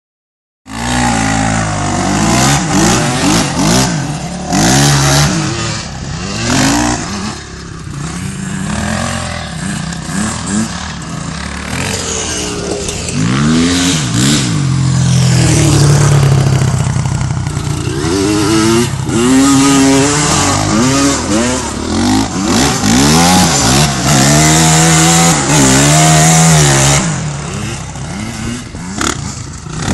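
Dirt bike engines revving hard and easing off again and again as the bikes ride the track, the pitch climbing and falling with each burst of throttle.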